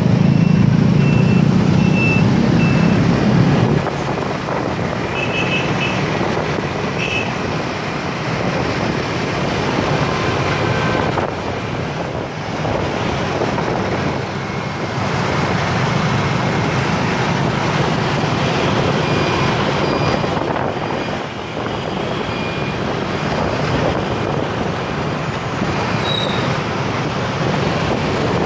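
Dense motorbike traffic: many scooter engines running close around, heard from a moving motorbike in the traffic stream. The engine noise is loudest for the first four seconds, then settles to a steady level.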